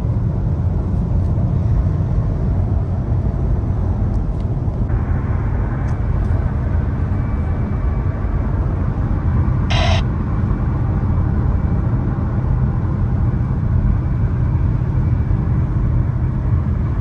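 Steady road and engine rumble of a car driving on the highway, heard from inside the cabin, with one short click about ten seconds in.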